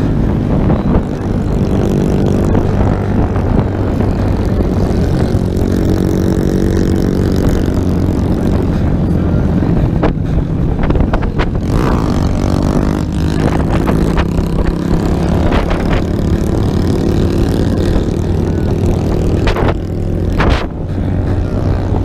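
Small single-cylinder minibike engine running under way, mixed with wind on the microphone. Its pitch rises and falls with the throttle a few times.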